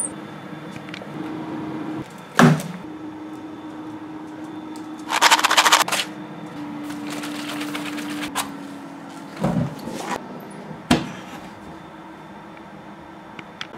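Hands at work lighting a pellet stove: a few sharp knocks and clicks from the stove door and a matchbox, with a short dense rattle about five seconds in, over a steady low hum.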